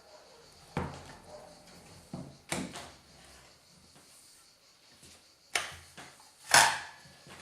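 Handling knocks and clicks of a cordless circular saw's plastic and metal parts as it is moved and adjusted, with the motor not running. There are about five separate knocks, the loudest near the end.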